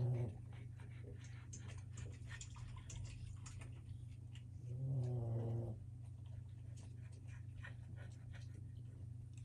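Boston Terrier puppies playing: claws clicking and scrabbling on the hard plastic disk and the deck, with one puppy's short, low growl about five seconds in. A steady low hum sits underneath.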